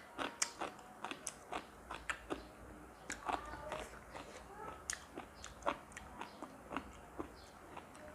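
A person chewing crunchy food close to the microphone, with a rapid string of crisp crunches and mouth clicks.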